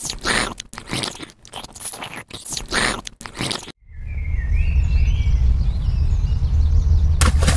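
A cat biting into the rind of a small green pumpkin: a quick run of crunches and scrapes for nearly four seconds. Then a steady low rumble takes over, with a sudden loud noise near the end.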